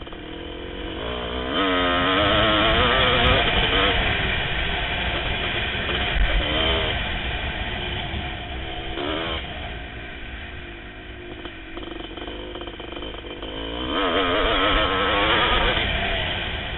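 1988 Kawasaki KX500's two-stroke single-cylinder engine revving hard under acceleration, the pitch wavering up and down as the throttle is worked. It surges loudest about two seconds in and again near the end, easing off between.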